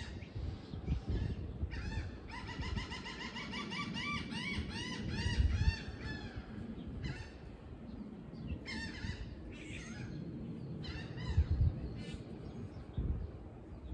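Birds calling: a quick run of repeated harsh, honk-like calls from about two to six seconds in, then shorter bursts of calls later.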